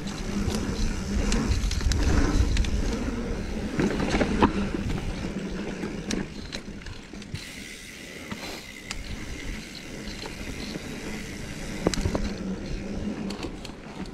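Mountain bike ridden over a dirt singletrack trail: rumbling tyre and trail noise with scattered clicks and rattles from the bike. It is loudest for the first few seconds, then eases off.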